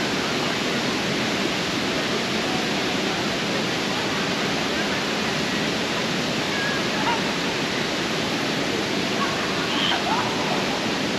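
Water from a fountain splashing steadily, with faint voices of people mixed in.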